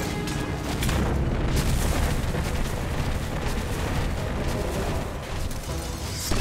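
Action-cartoon soundtrack: heavy booming sound effects of giant robot dinosaurs on the move, with music underneath. It gets louder about a second in and ends on a sharp hit.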